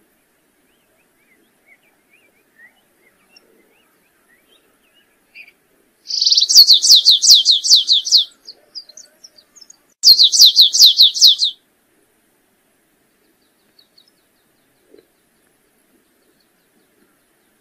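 Canário-rasteiro (stripe-tailed yellow-finch) singing: two bursts of song, each a fast, even run of high notes that slide downward. The first lasts about two seconds and starts about six seconds in; the second is shorter and comes about two seconds after the first ends. Faint scattered chirps come before them.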